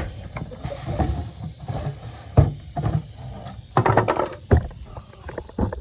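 Irregular knocks and clatters of handling, with low rumbling between. The loudest knock comes about two and a half seconds in, and a quick cluster of knocks comes around four seconds.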